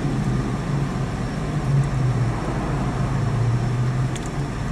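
Steady low hum of a car's engine and tyres on the road, heard from inside the cabin while driving.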